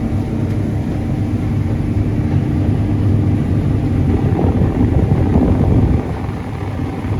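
John Deere S790 combine harvester running with a steady engine drone. About four seconds in, a rougher rumble comes in on top of it.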